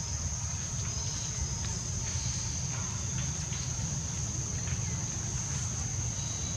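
Steady high-pitched insect drone over a low, even rumble, with a few faint scattered clicks.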